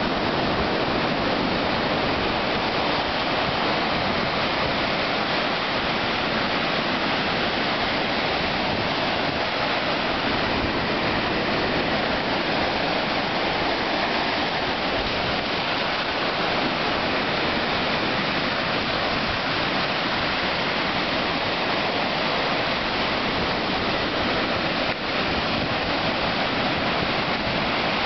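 Ocean surf breaking and washing up over the sand at the water's edge: a steady, even rush of water and foam.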